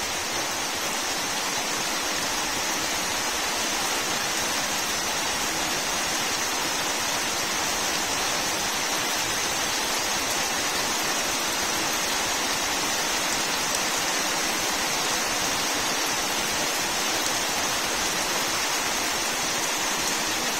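Steady rain falling on leaves and wet muddy ground: an even hiss with no breaks.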